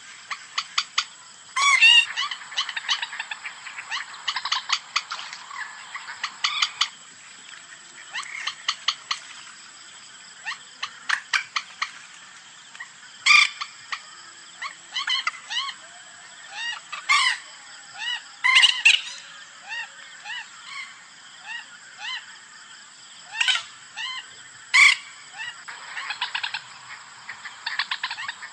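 Common moorhen calls played as a lure call: short, sharp clucking notes, some in quick ticking runs, others single louder calls, at irregular intervals over a faint steady hiss.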